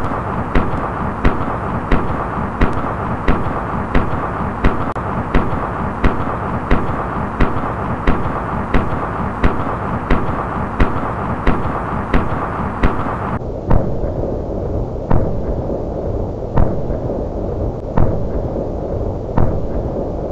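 Rifle gunshot sound effects, evenly spaced at about one and a half shots a second, over a continuous rumbling noise. About two-thirds of the way in, the shots slow to about one every second and a half.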